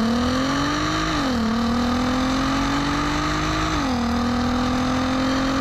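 Naturally aspirated 3.2-litre VR6 engine of a 2008 Mk5 Volkswagen Golf R32 accelerating, heard close to its twin exhaust tips. The pitch climbs, drops at a quick DSG upshift about a second in, climbs again, and drops at a second upshift near four seconds in.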